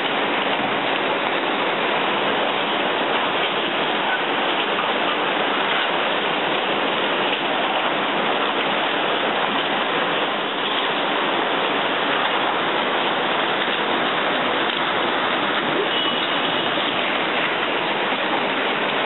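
Tsunami floodwater rushing past in a loud, steady, unbroken stream of noise.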